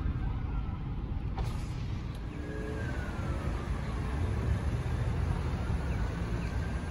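Steady low rumble of road traffic and idling vehicles, with a faint falling siren tone about three seconds in.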